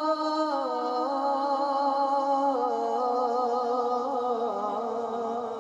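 Male voice singing a naat into a microphone, holding one long drawn-out note that steps down in pitch a few times and fades a little near the end.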